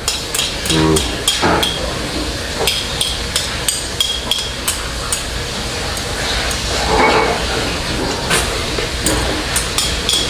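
Utensils clicking and knocking irregularly against a dish while a bowl of jjajangmyeon is eaten in a hurry, over a steady low hum.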